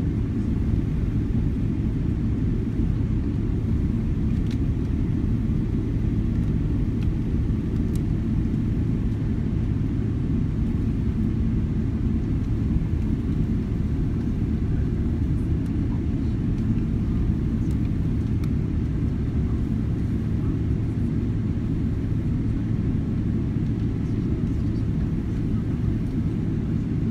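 Cabin noise of a Boeing 777-300ER taxiing: a steady low rumble from its GE90 engines at low taxi thrust and the gear rolling on the taxiway, with a steady low hum underneath.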